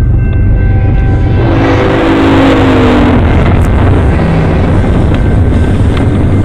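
BNSF diesel locomotives and double-stack container cars of a freight train passing close by with a heavy, steady rumble. About one and a half seconds in, a short horn chord sounds and drops slightly in pitch before fading into the rumble.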